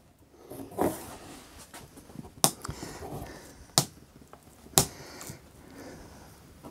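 Wetted Masonite hardboard backdrop being bent by hand around a curve: rubbing and scraping, then three sharp pops about a second apart. The popping is the foam behind the board being compressed, as the modeller understands it.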